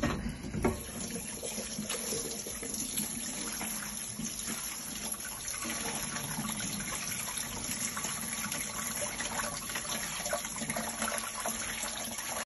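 A kitchen tap running steadily into a sink, the water splashing.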